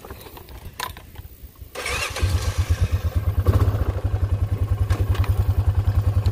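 A Honda ATV's single-cylinder engine is started about two seconds in, catches at once and settles into a steady idle with an even, rapid low pulse.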